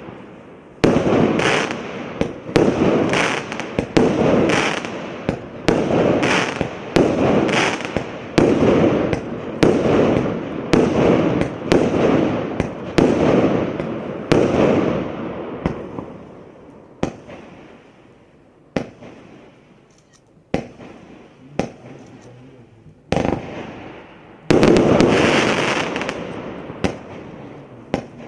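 Absolute Fireworks 'High Impact' 244-shot firework cake firing: shots in quick succession, about one or two a second, each a sharp bang that fades out over about a second. The pace thins to a few single cracks in the middle, then a dense, loud volley near the end.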